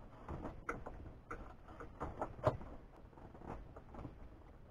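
Scattered small clicks and taps of plastic dashboard trim as the instrument cluster bezel's stubborn retaining clips are worked loose, with one louder knock about halfway through.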